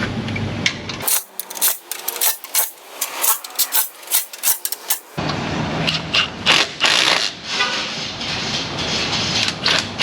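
Rapid metallic clicking and clattering of a wrench and ratchet tightening transmission bolts.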